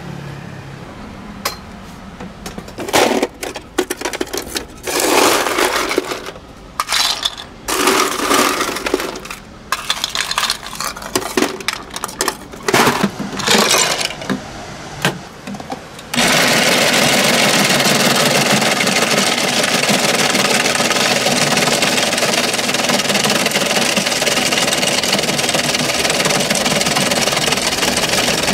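Irregular clattering and knocks as the electric ice shaver's lid is opened and the ice and bowl are handled. About halfway through, the ice shaver's motor starts abruptly and runs with a steady, loud grinding whir as it shaves ice into the bowl for patbingsu.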